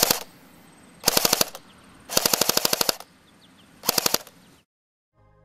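D-Boy full-metal MK16-L (SCAR-L replica) airsoft electric gun firing four short full-auto bursts of about fifteen shots a second, the longest lasting under a second in the middle.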